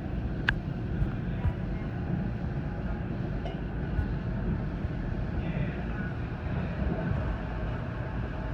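Steady rumble of an NJ Transit commuter train running on the rails, heard from inside a passenger car. A few sharp clicks come half a second apart about a second in, and one more a few seconds later.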